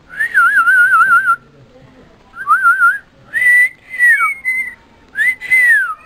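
Clear whistling in four phrases: a long warbling trill, a shorter warble, then two notes that each rise, hold and fall.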